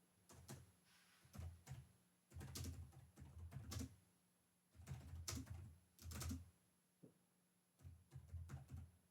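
Computer keyboard being typed on in quick bursts of keystrokes, about five runs broken by short pauses.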